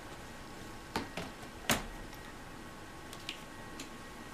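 A few light clicks and knocks of the vacuum cleaner's plastic wand fittings and nozzle being handled during assembly, the sharpest about two-thirds of a second after the first.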